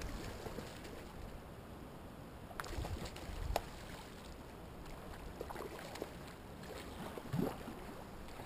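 River current running steadily, with a few short splashes and knocks from a hooked steelhead thrashing at the surface, the loudest just before the end.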